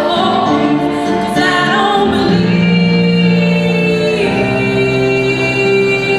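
Live vocal music: several voices singing sustained notes in harmony, changing chord twice.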